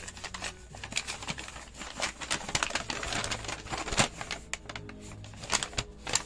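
Plastic toy parts and packaging being handled: a run of small clicks and light rattles, with some rustling around the middle.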